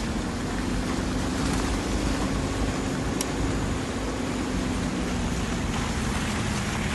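Steady drone of a moving vehicle, with its engine hum and tyre and wind noise, driving on a rough, muddy road.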